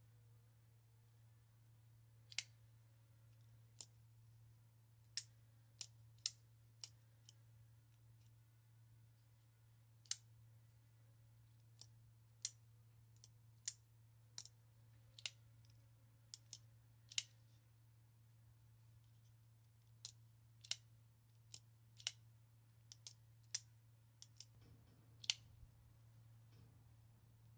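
Hogue Deka folding knife with carbon-fibre scales being flicked open and closed over and over: about thirty sharp, irregular clicks as the crossbar lock snaps and the blade seats. Its lock runs on a replacement omega spring made for a Benchmade Griptilian. A faint steady low hum lies underneath.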